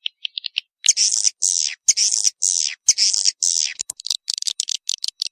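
Swiftlet mating calls, a recorded lure call of the kind played to draw swiftlets to a nesting house. The calls are a run of harsh, rasping chirps about two a second, with quick dry ticks at the start and again near the end.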